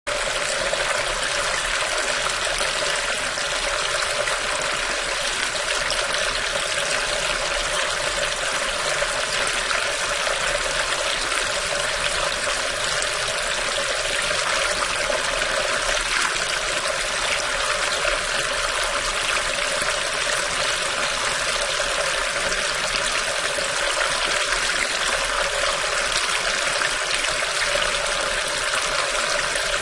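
Water running steadily through a storm drain, an even, unbroken trickling rush with no change in level.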